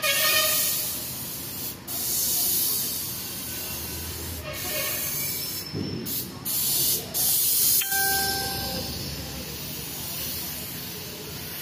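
Compressed-air gravity-feed paint spray gun hissing as it sprays paint onto a car body. The hiss stops for a moment several times as the trigger is released between passes.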